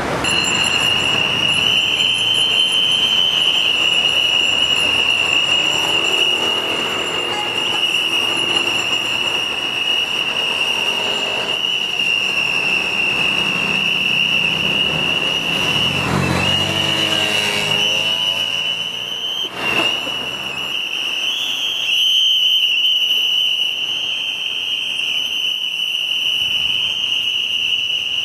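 A steady high-pitched whistling tone over the noise of road traffic, with a vehicle passing about two thirds of the way through.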